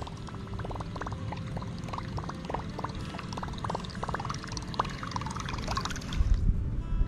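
Water trickling and splashing around a kayak while a topwater lure is retrieved, with a run of short, irregular ticks a few times a second. A low rumble of rod handling comes in near the end.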